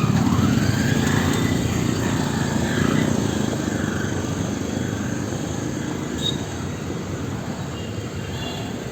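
Street traffic noise: a motor vehicle passes close by near the start, its engine note rising, and the rumble then eases off to a steady traffic hum.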